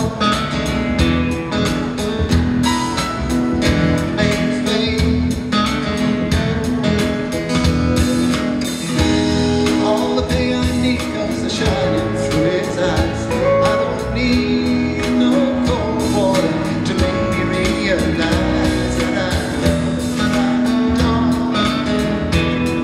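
Live solo acoustic guitar, strummed in a steady rhythm, with a man singing along at the microphone.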